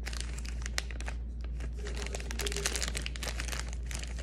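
Clear plastic bag of cardboard game tokens crinkling as it is handled, with many irregular crackles, densest about halfway through.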